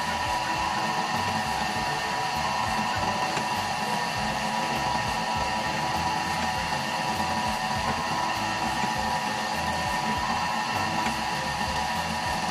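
Motor-driven dough roller (dough sheeter) running steadily with a constant hum as bread dough is fed through its rollers.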